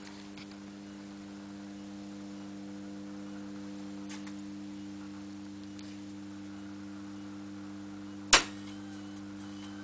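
Steady mains hum from a microwave-oven transformer serving as the heater transformer for a GU-50 tube. One sharp click about eight seconds in is the loudest sound.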